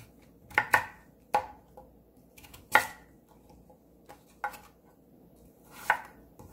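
Chef's knife slicing through a Korean radish and knocking on a wooden cutting board: about six separate cuts spaced unevenly, the loudest about three seconds in.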